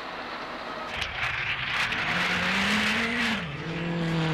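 A World Rally Championship car running at speed on a stage, with a loud hiss of tyre noise from about a second in. Its engine note climbs, drops sharply a little over three seconds in, then holds steady.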